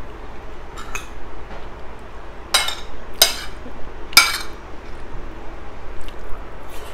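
Metal spoon and fork scraping and clinking against a ceramic plate while scooping up rice, with several sharp clinks, the loudest about two and a half, three and four seconds in.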